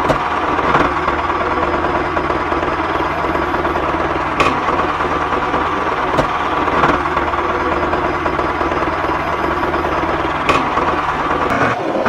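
Engine running steadily with a knocking beat, the sound of the miniature tractor as it tows its loaded trailer, with a few sharp clicks along the way.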